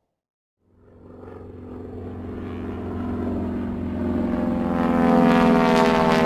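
A droning, engine-like sound with a steady low hum, fading in after a brief silence and swelling louder over about four seconds, then holding.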